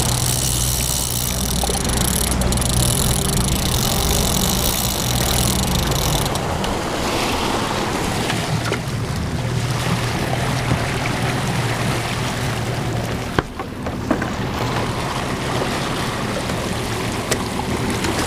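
Boat engine running at trolling speed, a steady low hum, with water rushing and churning in the wake. The low hum is strongest in the first six seconds or so, then the rushing water takes over.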